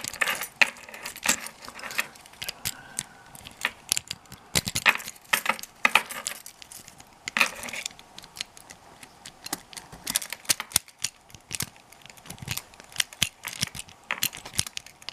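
A jiggle key rattling and clicking in a wafer lock as it is jiggled about, with a key ring of jiggle keys jangling; irregular metallic clicks throughout, the lock not opening.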